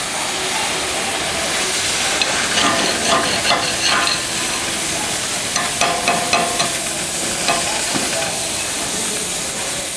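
Oxy-fuel cutting torch on a portable CNC cutter hissing steadily while cutting metal, with bursts of crackling through the middle.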